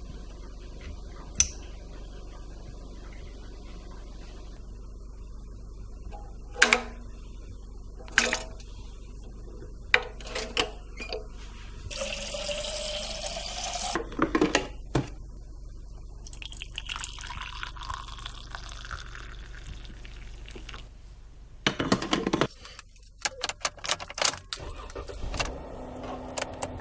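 Water running in two short spells over a steady low hum, with scattered knocks and clatter.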